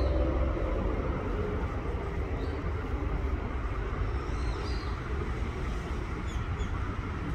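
Outdoor background noise: a steady low rumble with a few faint, short high chirps, as background music fades out at the start.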